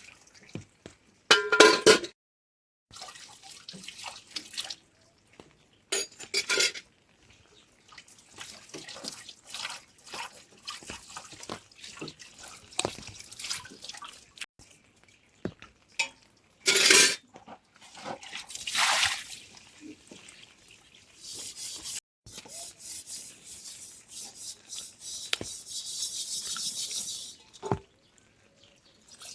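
Water splashing and dripping in short, irregular bursts, mixed with small knocks and clicks of handling. There are louder splashes about a second and a half in, around six seconds, and near the middle, and a steadier stretch of running water near the end.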